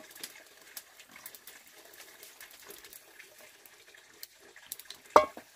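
Wood cooking fire crackling faintly with scattered small ticks, and one short, loud sound with a ringing pitch about five seconds in.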